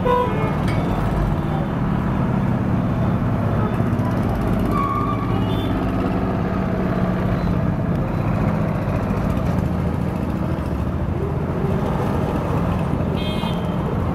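Busy street traffic with a steady low engine drone, motorcycles and cars moving close by. A few short horn toots sound near the start, about five seconds in and near the end.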